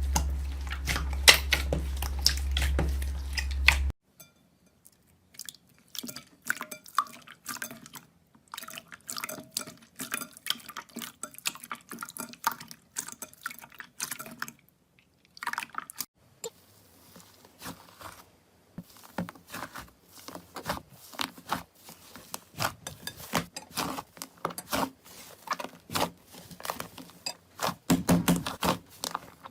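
Slime being squeezed and poked by hand, giving irregular wet clicks, pops and squelches. A low steady hum sits under the first four seconds and cuts off abruptly.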